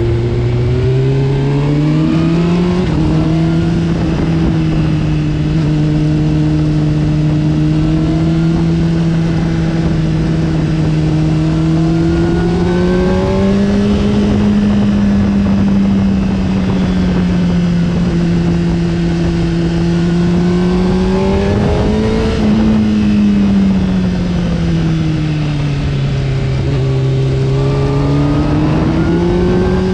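Honda sport motorcycle engine under way, its note rising and falling with the throttle: it climbs about two seconds in, holds steady, swells again around the middle, dips and rises near the end, with steady wind rush over the microphone.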